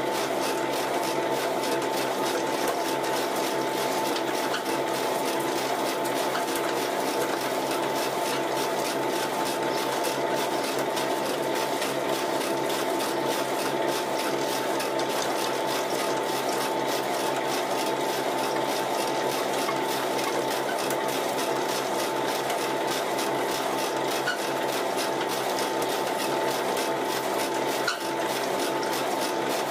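Homemade sawdust pellet mill running steadily, pressing moistened sawdust into pellets. It makes a constant high hum with a fast, even mechanical chatter.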